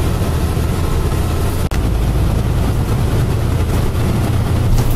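Interior noise of a moving streetcar: a steady low rumble of the tram running along its rails, with a very brief drop in the sound just under two seconds in. Another tram passes alongside near the end.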